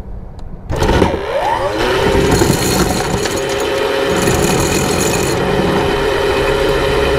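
Anchor chain, then rope rode, rattling out through a Lewmar 700 Pro windlass's free-spooling gypsy and over the bow roller as the anchor drops in free-fall mode. It starts about a second in, with a whine rising in pitch as it gets going, then runs on steadily.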